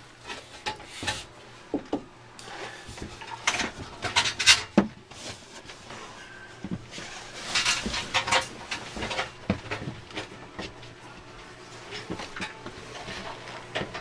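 Irregular knocking, clattering and rubbing of things being handled, with the loudest knocks about four to five seconds in and again around eight seconds in.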